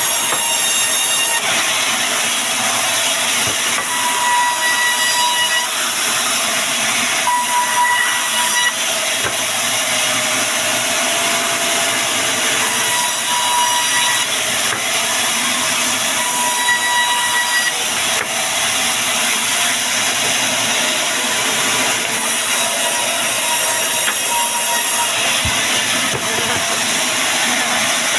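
Bandsaw sawmill cutting a log: a loud, steady hissing rasp from the blade, with a whine that comes and goes several times.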